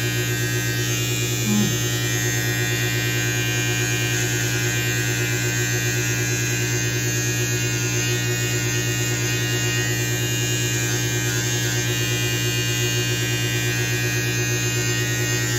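Electric beard trimmer with a bare metal T-blade buzzing steadily as it is run along the neckline to shape the beard.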